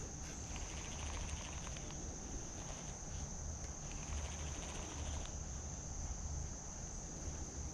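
Steady high-pitched insect chorus, an unbroken shrill drone, over a low uneven rumble.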